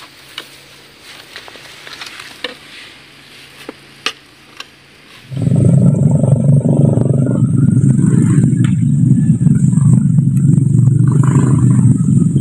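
Faint scraping and a few sharp knocks as mud is dug away from a bogged, palm-fruit-laden motorcycle's wheel with hand tools. About five seconds in, a motorcycle engine starts sounding loud and steady, with a thin high whine over it.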